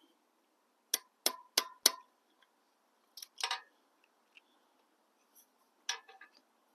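Sharp metallic clicks from hand tools at work: four in a quick, even row about a second in, two more a little later, and a short cluster near the end.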